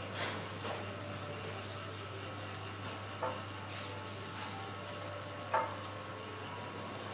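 Steady background hiss with a low hum, and a few brief soft taps or clicks, the clearest about five and a half seconds in.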